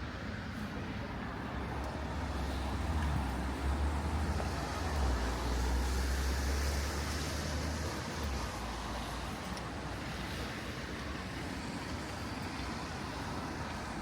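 Rain on a wet city street with a car passing: a low engine rumble and tyre hiss on the wet road build from about two seconds in, are loudest around five to seven seconds in, and fade out by about eight seconds.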